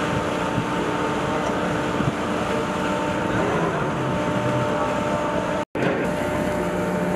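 Steady machinery hum and rushing water in a dock landing ship's flooded well deck, with a few level hum tones under the noise. The sound drops out for a split second about five and a half seconds in.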